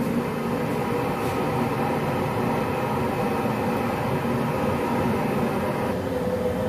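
Steady roar of commercial gas burners under large boiling stock pots, with a faint hum over it; the sound shifts slightly about six seconds in.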